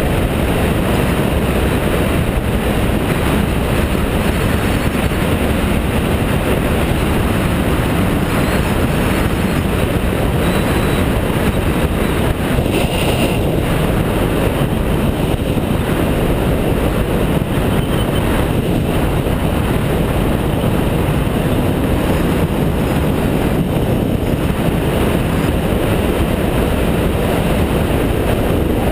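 Steady wind rush and engine drone of a BMW F650GS motorcycle riding along at a constant speed.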